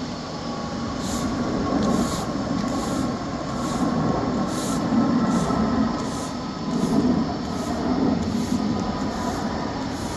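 Push broom scraping over interlocking paving stones in repeated strokes, over a faint steady hum.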